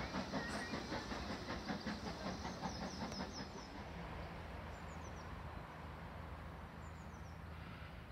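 Distant BR Class 4MT steam locomotive working, with a quick rhythmic beat over the first few seconds that fades into a steadier low hum. A few short, high, falling bird chirps.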